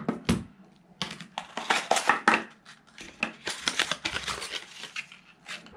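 Crinkling and rustling of the white folded card-and-paper insert from a phone box as it is handled and opened, with a few sharp clicks and light knocks as the phone and charging cable are set down on the table.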